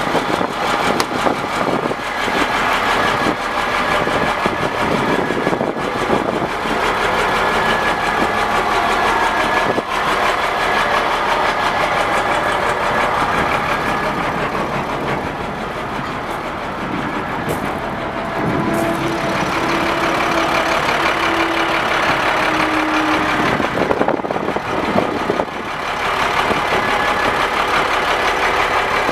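2001 International 4700 truck's engine idling steadily, with a brief steady whine for a few seconds past the middle.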